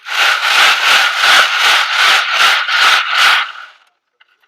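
Loud rhythmic rattling and scraping in even strokes, about three a second, that stops abruptly near the end.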